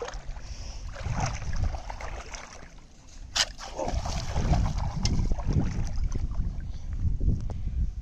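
Feet splashing and sloshing through shallow, muddy water, with wind buffeting the microphone. There is a single sharp snap about three and a half seconds in, and the splashing and rumble grow heavier after it.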